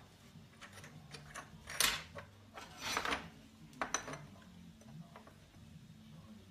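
Small steel pieces being handled on a steel workbench: a sharp metal click, a short scrape, then a knock, with quiet handling noise between.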